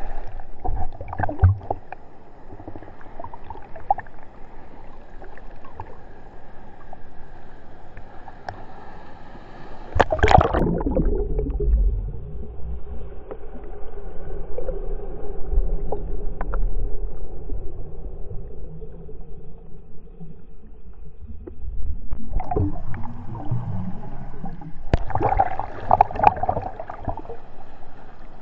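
Surf water rushing and splashing against a GoPro's waterproof housing as the camera rides in the waves. About ten seconds in, a loud splash comes as the camera goes under, and the sound turns to a muffled low underwater rumble. The rushing and splashing return for the last several seconds.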